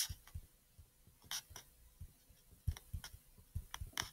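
Stylus tapping and scratching on a touchscreen as a word is handwritten: a scatter of faint, irregular clicks and soft taps.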